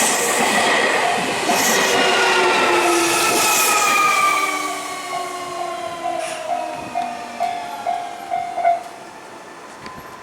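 Nankai Main Line electric train running past a level crossing, its motors whining in several tones that slowly fall in pitch and fade after about four seconds. The crossing's warning bell dings about twice a second and stops near the end.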